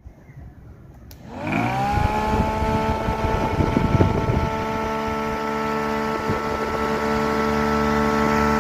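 Small electric motor switched on with a click about a second in: its whine rises quickly in pitch as it spins up, then runs steadily. There is some irregular knocking during its first few seconds.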